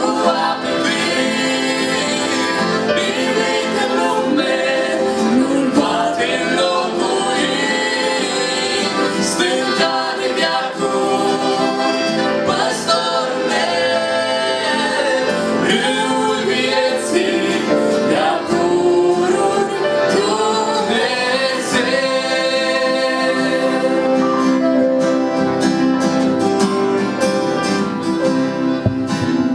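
A small mixed group of young men and women singing a Romanian Christian worship song in harmony into microphones, accompanied by acoustic guitar and keyboard. Near the end the voices drop away, leaving the instruments playing.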